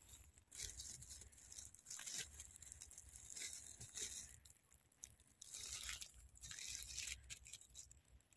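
Dry fallen leaves rustling and crackling in short uneven bursts as a hand brushes them and grass aside from a porcini mushroom on the forest floor.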